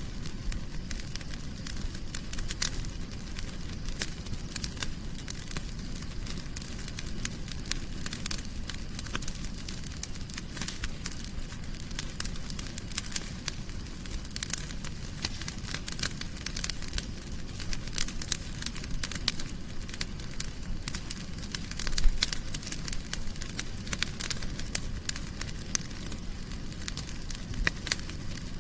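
Wood fire burning in a fireplace, crackling continuously with dense small pops and snaps over a low rumble of flame, and one louder pop near the end.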